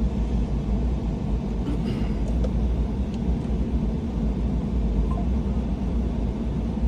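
A steady low rumble, with a few faint, short gull calls about two seconds in.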